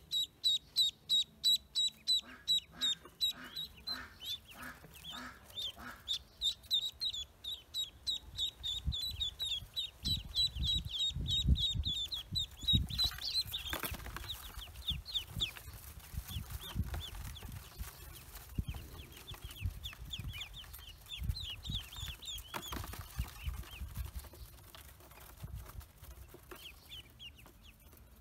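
Pekin ducklings peeping: a fast, even run of short high-pitched peeps, continuing more scattered throughout. Low bumps and rustling come in over the middle stretch.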